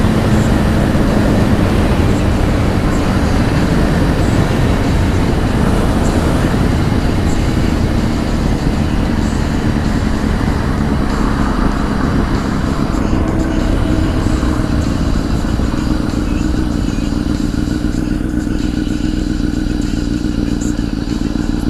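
Honda CBR1000 sport bike with a Two Brothers aftermarket exhaust cruising at a steady speed, heard through a helmet microphone: an even engine drone under heavy wind rush, easing off slightly near the end.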